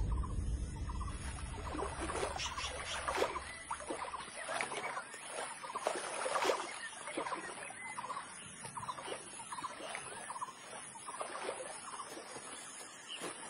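Wild animal calls: many short, high chirps and yelps coming irregularly, over a steady high hiss.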